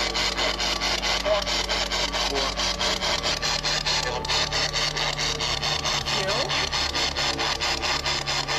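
Handheld radio-sweep "spirit box" scanning through the radio band: a steady rhythm of raspy bursts of static, about five a second.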